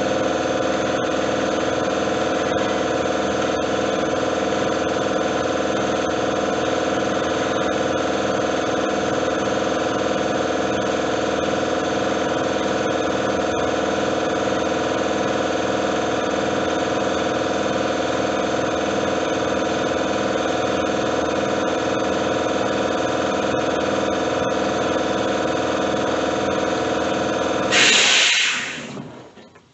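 An engine idling steadily with an even pulse. Near the end a short loud noise, then the engine sound drops away sharply.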